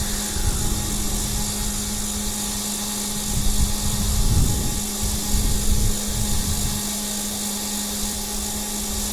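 A steady motor drone with a constant low hum, with a stretch of low, uneven rumbling in the middle.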